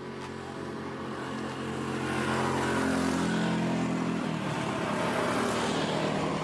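A motorcycle riding up the road and passing by, its engine growing louder over the first three seconds as it approaches. The engine note rises briefly about three seconds in, then falls back as it goes past.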